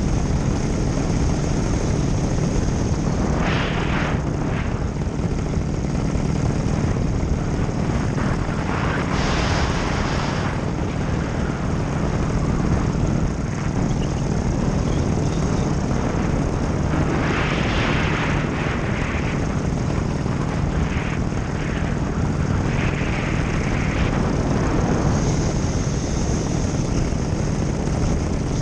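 Nitro 200 paramotor's two-stroke engine and propeller running steadily in flight, with gusts of wind rushing over the microphone several times.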